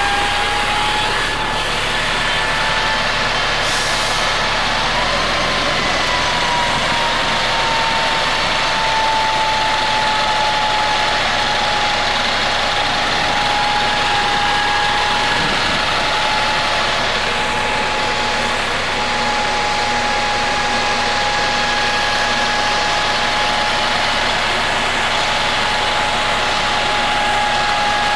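Three-axle double-decker bus's rear-mounted engine idling steadily, with a steady high-pitched whine over it that rises briefly about five seconds in.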